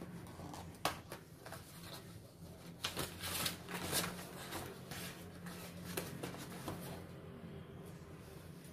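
White cardboard packaging being handled and opened: a string of rustles, scrapes and light taps, busiest around three to four seconds in, over a low steady hum.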